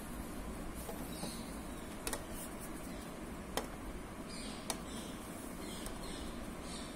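A few light clicks, about three, of fingers working soft clay rope against a steel plate, over a steady background hiss, with a few faint high chirps here and there.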